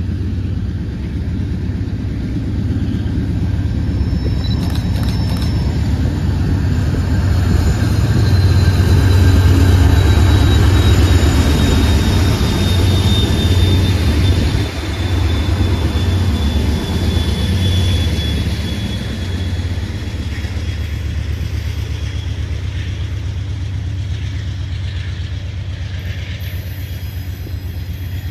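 Passing train rumbling heavily, loudest a few seconds in and easing off in the second half. A thin high wheel squeal runs through the middle, sliding slightly lower in pitch.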